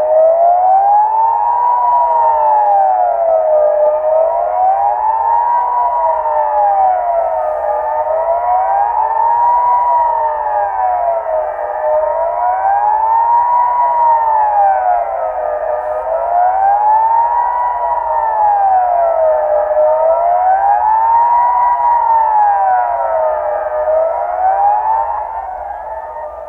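Civil defense siren sounding the Swiss general alarm, a wailing tone that rises and falls regularly about once every four seconds, with fainter wails out of step with it. The sound fades near the end as the signal stops.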